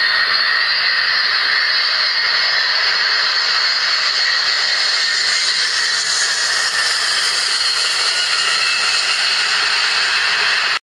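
Steady, loud rushing hiss of a jet airplane, an added sound effect that starts on a sudden cut and stops dead at the end.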